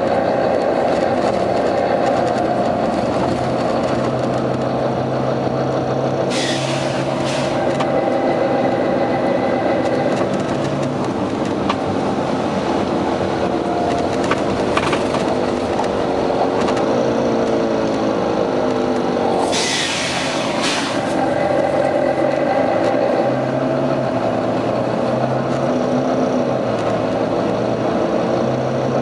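Volvo B9TL bus's diesel engine running and changing speed, its note falling and rising through the middle. Two short bursts of compressed-air hiss come about a third and two-thirds of the way in.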